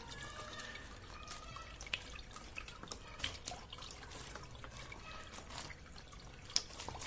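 Water dripping and trickling irregularly from a cloth filter full of burned, crushed phone circuit boards into a bucket below, as rinse water washes the aqua regia solution out of them.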